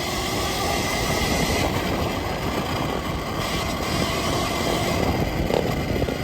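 Steady rumble and rattle with wind noise from a Sur-Ron Ultra Bee electric dirt bike riding off road.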